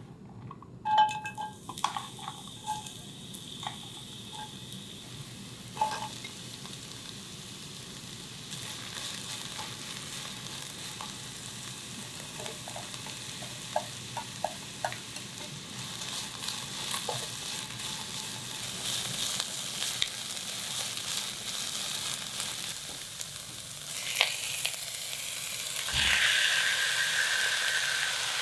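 Food sizzling as it fries in a pan, the sizzle growing louder through the stretch. There are a few sharp clinks of a utensil in the first seconds.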